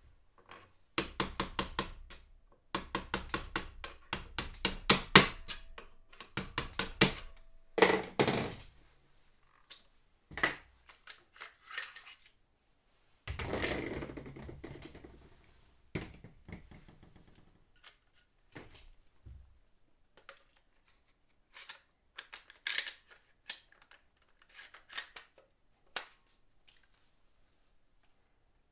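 Clicks, knocks and clatter from a Krytac Trident airsoft rifle being taken apart with hand tools. A rapid run of sharp clicks lasts several seconds near the start. A rattling clatter follows, then scattered single knocks and taps as parts are handled and set down.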